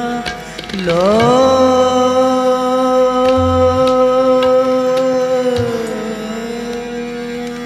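A man singing in an Indian classical style: he slides up into one long held note and lets it fall away near the end, over a steady drone.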